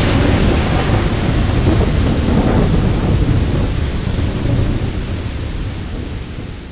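Thunderstorm sound effect: a long rolling rumble of thunder with a hiss over it, slowly dying away and fading out near the end.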